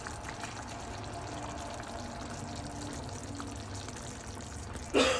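Chicken curry in coconut milk simmering in a pan, a steady bubbling with small pops. A brief, louder sound comes near the end.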